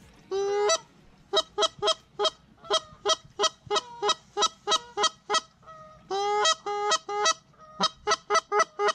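Hunter's goose call blown in a run of quick, sharp clucks, about three a second, with two longer drawn-out honks, one at the start and one about six seconds in, calling to a passing goose.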